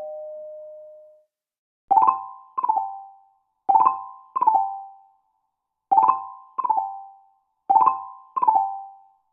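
Ring alert chime: a two-note electronic chime struck four times, about two seconds apart, each pair of notes ringing out and fading. A held chime tone from the previous alert fades out in the first second.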